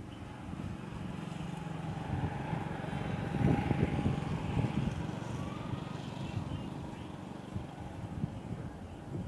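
A motor vehicle's engine running past, growing louder about three seconds in and then fading.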